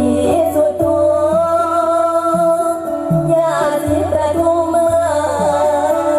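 Music: a female voice sings a held, wavering melody with ornamented bends over a steady instrumental accompaniment and a repeating bass line.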